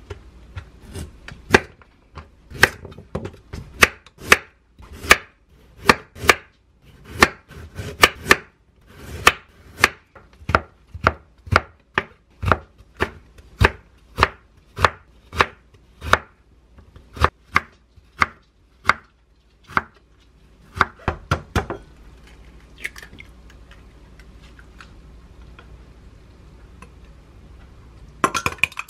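Chef's knife slicing a carrot into thin strips on a wooden cutting board, sharp knocks about two a second that stop about 22 seconds in. Near the end, chopsticks start beating an egg in a small glass bowl with a quick clinking rattle.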